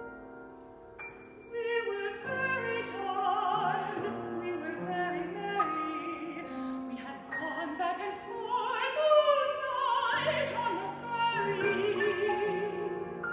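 Mezzo-soprano singing a classical art song with wide vibrato, accompanied by a grand piano. The piano plays alone for about the first second and a half before the voice enters.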